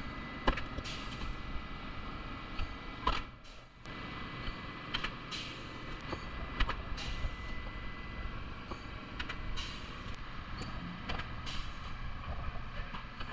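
Resistance spot welder with a C-arm gun and copper electrodes, fusing the flange of a replacement rocker panel to the body with a series of welds. Each weld is a short, sharp hiss with a click, about one a second, over a steady low hum.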